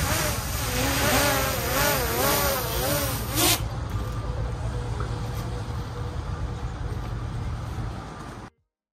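Camera drone's propellers buzzing, their pitch wavering up and down as the motors adjust, with a sharp click about three and a half seconds in. After that the buzz holds steadier, and it cuts off suddenly near the end.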